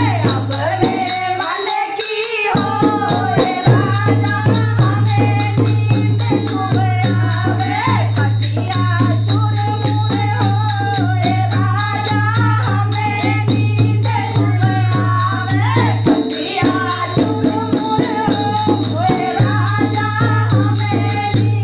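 Hindi folk song: voices singing over fast, steady hand percussion with a rattling beat and a low sustained drone.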